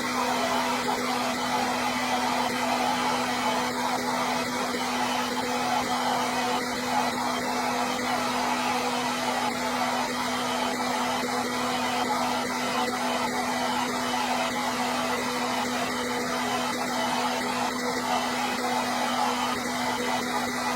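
Hair dryer running continuously: a steady rush of blown air with a constant motor hum underneath.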